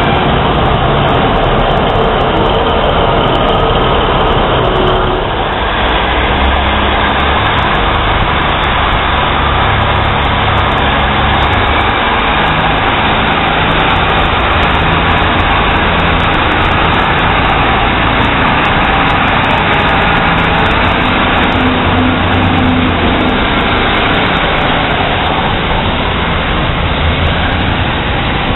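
Class 150 Sprinter diesel multiple unit running along the platform, its diesel engines giving a low steady sound under heavy wind noise on the microphone.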